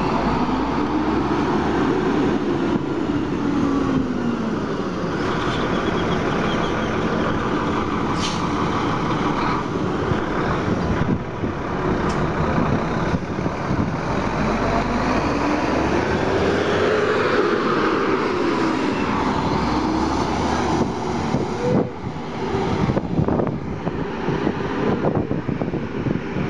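Zonda city bus's Cummins ISB245 diesel engine running, its pitch rising and falling twice as it revs up and eases off. A few short sharp clicks are heard along the way.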